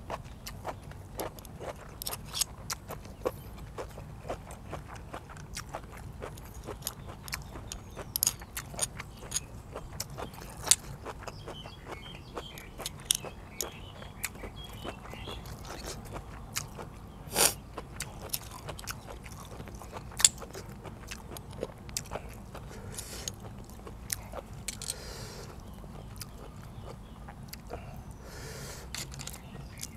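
Metal spoon prying open blanched blood cockle shells and scraping against them: many small sharp clicks and scrapes of shell and spoon, a few of them much louder, with chewing in between.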